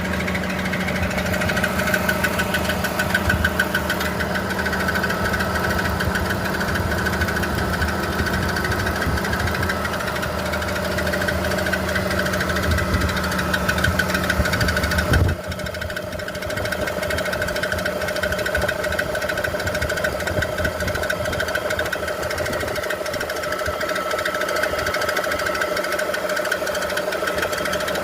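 BMW E46 330i's 3.0-litre inline-six engine running with a rapid, rhythmic knocking, an unexplained knock the owner wants identified. About halfway through, a steady low hum cuts off suddenly while the engine and knocking carry on.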